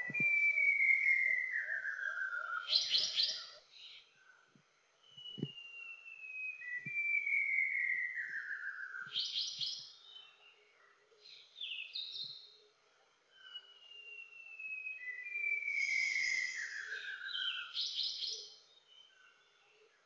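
White-browed shama singing three times. Each phrase is a long whistle sliding down in pitch, ending in a quick burst of high notes, and the phrases come about every seven seconds.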